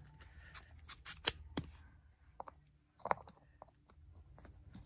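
Scattered small metallic clicks and scrapes of a thin metal tool prodding inside an RC car wheel's hub, working loose the wheel hex that has stuck in it.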